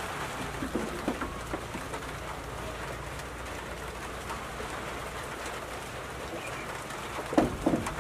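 Dried corn cobs knocking into a plastic bucket as they are gathered: a few light knocks about a second in and a louder clatter near the end, over a steady hiss.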